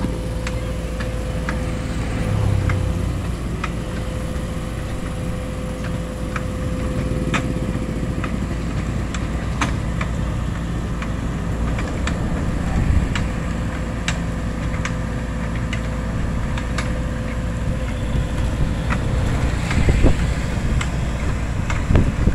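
Excavator engine running steadily with a low drone and a steady whine, with scattered sharp clicks and knocks throughout and a few louder knocks near the end.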